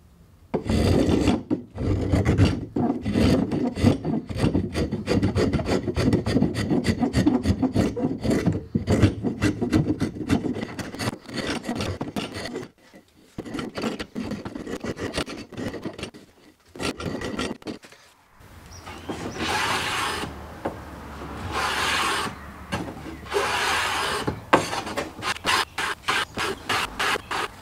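A small hand plane shaving a laminated cedar and hardwood canoe paddle in quick repeated strokes, a few a second, with short pauses about halfway through. In the last third the strokes grow longer as the blade works along the shaft.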